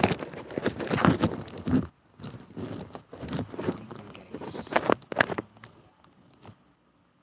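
Rustling, crackling handling noise with many sharp clicks and taps, densest in the first two seconds and dying away about five and a half seconds in.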